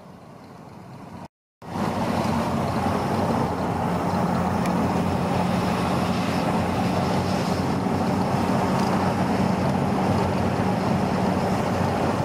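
Steady road and wind noise inside a moving vehicle at highway speed: an even rushing with a low steady hum from the engine and tyres. A short drop to silence comes about a second and a half in, after which the noise comes back louder and holds steady.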